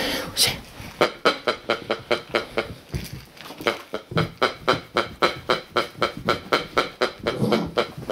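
English setter puppy yapping over and over in excited play, a steady run of short high yips about four a second, starting about a second in.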